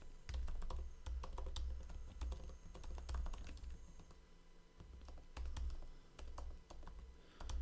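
Typing on a computer keyboard: irregular key clicks in quick runs with short pauses between them.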